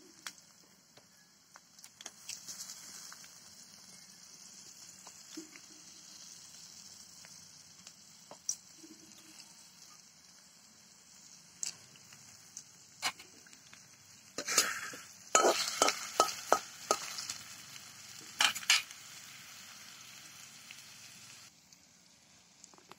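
Chopped onions sizzling in hot oil in a steel kadhai: a steady frying hiss that drops away shortly before the end. In the second half a run of sharp scrapes and clinks comes as the onions are stirred with a steel spatula against the pan.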